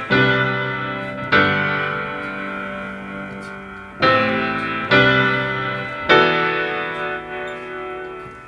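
Piano intro of a song, with no voice: full chords struck about five times, each left to ring and slowly fade.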